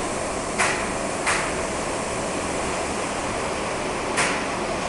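Three short knocks over a steady hiss: a clamp being set onto the skylight frame and curb.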